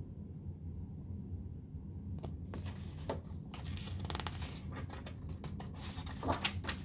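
Pages of a picture book being turned by hand: several short paper rustles and flutters starting about two seconds in, over a faint low steady hum.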